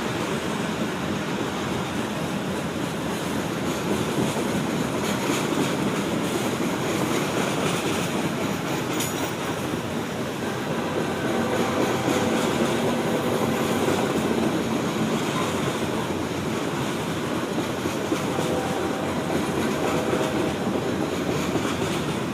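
Norfolk Southern train running on the rails: a steady rumble with wheel and rail noise, growing slightly louder about halfway through.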